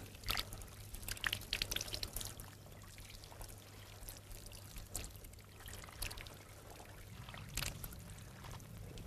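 Water poured in a thin trickling stream from an ornate metal ewer, with a few sharp clicks and clinks during the first couple of seconds.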